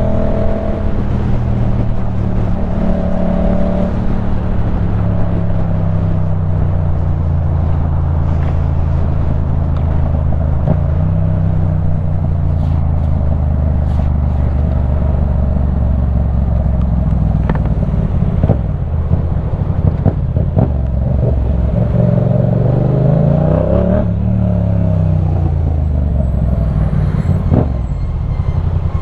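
Yamaha MT-07 689 cc parallel-twin engine running through a LeoVince One Evo full-system exhaust while riding, heard with wind rush. The engine pitch drifts slowly, then rises and falls again about three-quarters of the way through.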